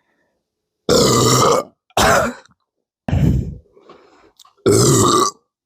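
A man burping loudly four times in a row, each burp under a second long, with dead silence between them.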